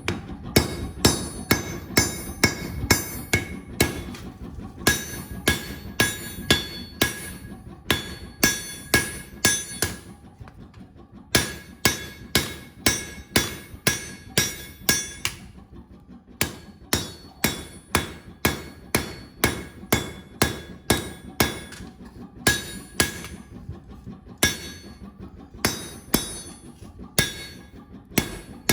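Hammer blows on hot steel over an anvil, about two to three strikes a second, each with a bright ringing tone. There are short pauses about ten and fifteen seconds in.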